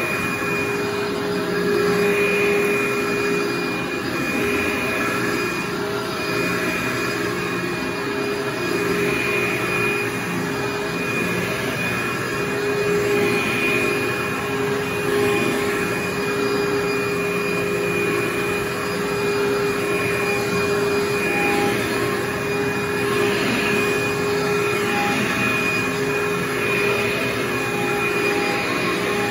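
Upright vacuum cleaner running with a steady motor whine as it is pushed back and forth over carpet.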